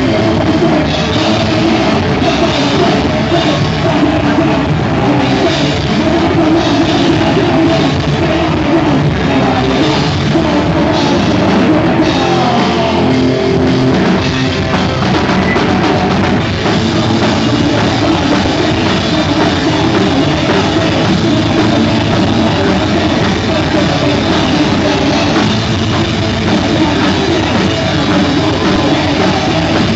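Live crossover thrash band playing at full volume: distorted guitars, bass and drum kit in one continuous, dense wall of sound.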